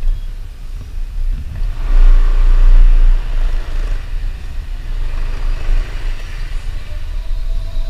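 Motorcycle engine running under the rider as the bike rolls slowly and picks up speed, with a heavy low rumble that is loudest about two to three seconds in.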